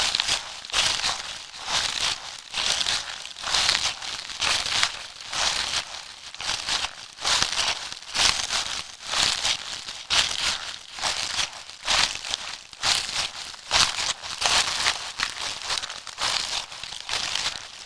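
Footsteps walking at a steady pace on a crunchy surface, each step a crisp crunch, about three steps every two seconds.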